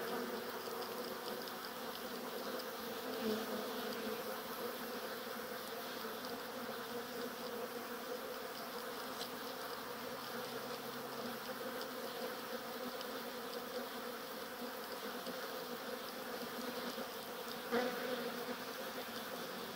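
Many honeybees buzzing as they fly in and out of hive entrances: a steady hum, with a brief louder buzz near the end.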